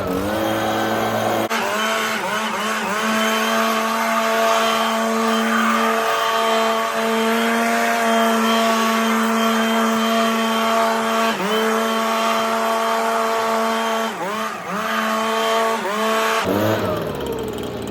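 Leaf blower running at high speed with a steady whine, dipping briefly in pitch several times as the throttle is eased and caught again, then dropping to a lower speed near the end.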